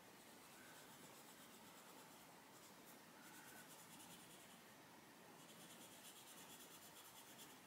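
Faint scratching of an Arteza Expert coloured pencil on colouring-book paper: quick, short shading strokes in three runs with brief pauses between them.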